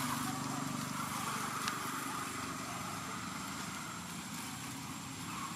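A motor engine running steadily in the background, slowly fading.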